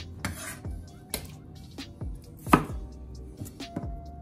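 Chef's knife cutting a raw potato into wedges on a bamboo cutting board: several irregular knocks of the blade against the board, the loudest about two and a half seconds in.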